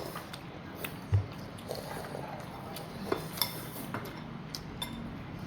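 Cutlery and dishes clinking at a dinner table: scattered light clicks and taps of utensils against bowls, with one louder dull thump about a second in.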